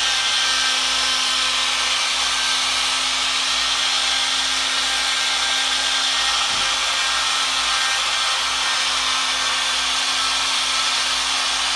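Die grinder running at reduced speed through a light dimmer switch, grinding steadily into the wooden plenum to port it, with a steady motor hum under the grinding hiss.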